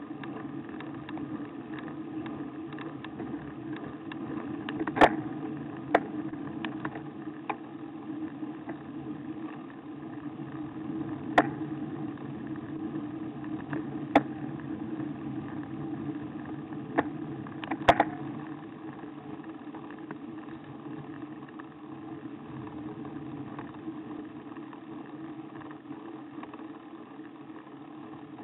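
Steady ride noise of a bicycle climbing, picked up by a camera mounted on the bike: a continuous hum and rumble from tyres and frame vibration. Several sharp knocks come in the first two-thirds, as the bike and mount jolt over the road.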